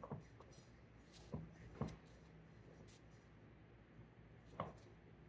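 Faint handling sounds of a layer cake being stacked and iced by hand: four soft knocks and some light scraping over a low steady hum.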